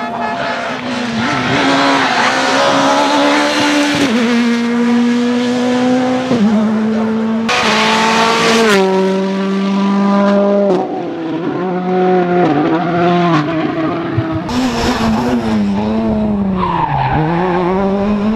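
Rally cars' turbocharged four-cylinder engines at high revs as they drive through the stage, the pitch jumping down and back up with each gear change, with a few sharp cracks. Near the end one engine drops in pitch under braking and climbs again as it pulls away.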